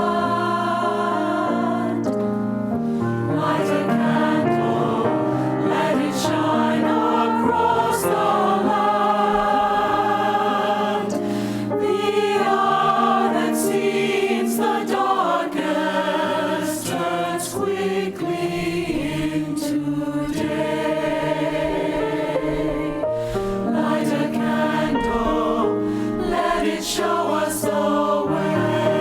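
A choir singing with accompaniment, a holiday choral piece in sustained, changing sung notes.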